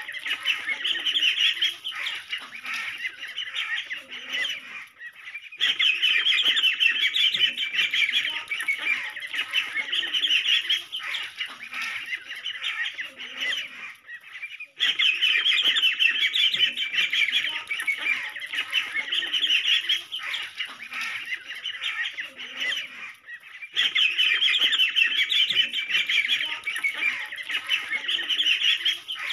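A group of ducklings peeping in a dense chorus of high-pitched calls. The chorus breaks off briefly and starts again about every nine seconds.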